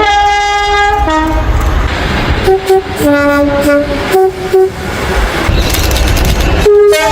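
British train two-tone horns sounding a run of high and low blasts: one in the first second, another high-low-high call from about two and a half to nearly five seconds, and a short one near the end. Between the blasts is the rumble and clatter of a passing train.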